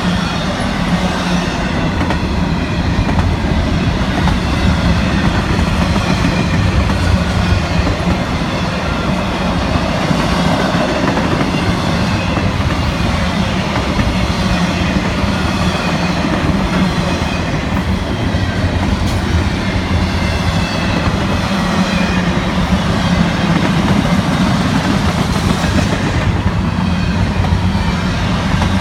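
Double-stack intermodal freight cars rolling past on steel wheels: a loud, steady rumble of wheels on rail.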